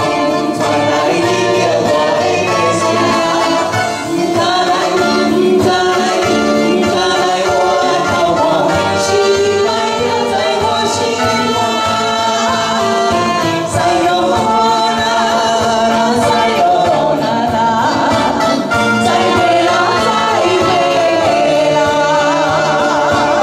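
Live amplified band music with electric guitar and a sung vocal line; near the end a man and a woman sing together into microphones.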